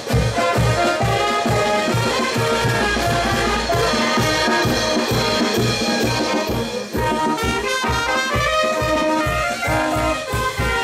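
Andean brass band playing a lively tune, trumpets and saxophones carrying the melody over a steady bass drum beat of about three beats a second.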